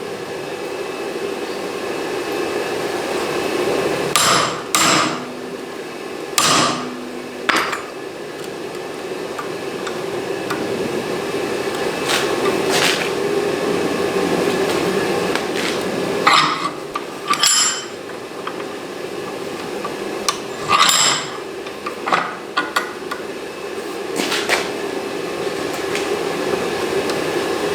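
Hammer blows on the hot mild-steel tongs at the anvil, struck singly and irregularly, a second or more apart, each ringing briefly, over a steady background hum.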